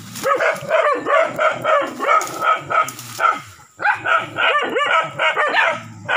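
Wild dogs barking and yelping in quick, repeated volleys, several barks a second, with a brief lull a little past halfway.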